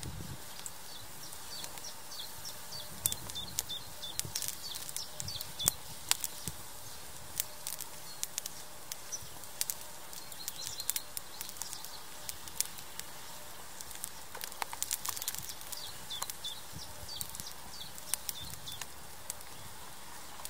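Charcoal grill crackling, with sharp irregular pops from the coals beneath a grilling chicken. Faint short bird chirps sound in the background.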